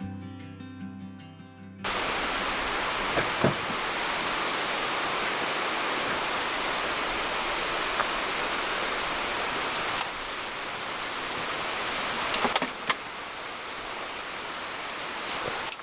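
Acoustic guitar music ends about two seconds in, giving way to a steady rushing of water from rain and the river, with a few sharp clicks here and there.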